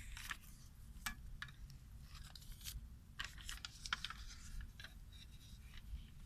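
CD packaging being handled and opened: a scattered series of short clicks and scratchy plastic rustles.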